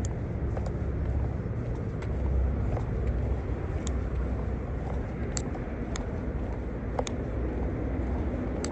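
Steady low rumble of road traffic in the open air, with a few short sharp clicks.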